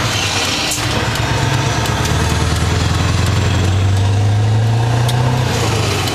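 Scania 164L 480's 15.6-litre V8 diesel heard from inside the cab, pulling away and driving under load with a steady low drone. The drone dips briefly about a second and a half in and again near the end.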